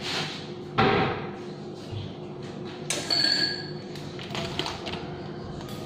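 Kitchen utensils and ingredients being handled: a sharp knock about a second in, then a short ringing ping about three seconds in, with a few lighter knocks and rustles after.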